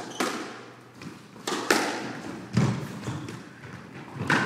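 A squash rally: the rubber ball struck by racquets and slapping off the court walls. There are about five or six sharp hits, roughly a second apart and some in quick pairs, each ringing on in the enclosed court.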